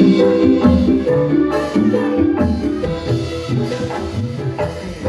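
Music playing: a rhythmic tune of short pitched melodic notes over percussion, getting gradually softer toward the end.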